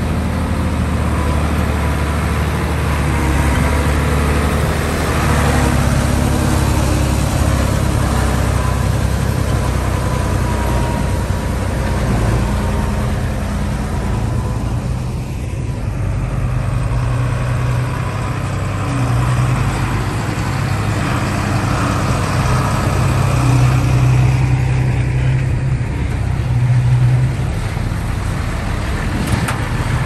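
Diesel engine of a Komatsu D20P bulldozer running steadily, its note shifting up and down now and then as it works.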